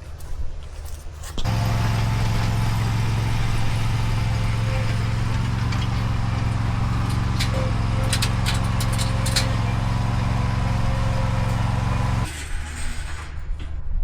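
A zero-turn mower's engine runs steadily at a constant speed for about ten seconds, then cuts off abruptly near the end, leaving a lower rumble underneath. A few sharp clicks are heard in the middle.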